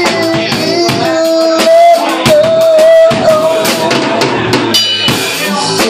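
Live rock band playing loudly: drum kit with bass and electric guitar.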